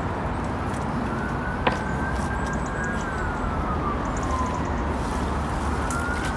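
A siren wailing, its pitch slowly rising, holding and then falling over a few seconds, over a steady low rumble. One sharp knock comes a little under two seconds in.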